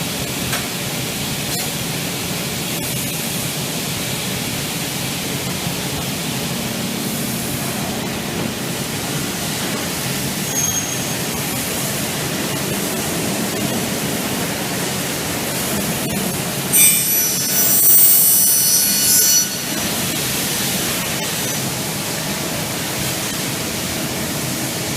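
Steady machine and workshop noise. About 17 seconds in, an automatic double-head saw blade cuts through an aluminium profile at 45 degrees for about two and a half seconds, giving a loud, high ringing whine.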